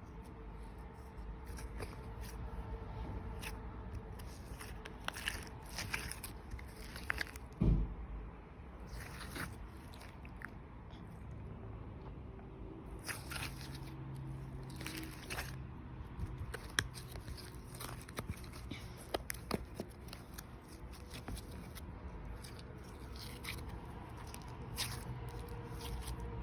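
Hands playing with slime: irregular small clicks and crackles, with one dull thump about a third of the way through.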